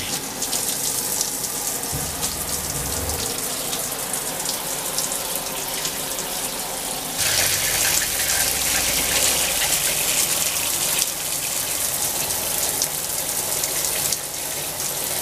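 Water spraying from a stock handheld RV shower head onto the shower pan: a steady hiss that grows louder and brighter about seven seconds in and eases again around eleven seconds.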